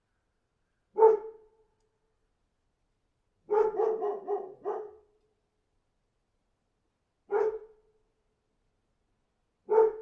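Dog barking: a single bark, then a quick run of about five barks, then two more single barks spaced a few seconds apart, each standing out against dead silence.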